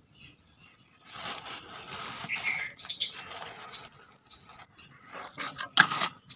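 A trowel stirring a dry cement and moram mix in a steel pan. A gritty scraping starts about a second in. Sharper scrapes and clinks of the blade against the metal pan come near the end.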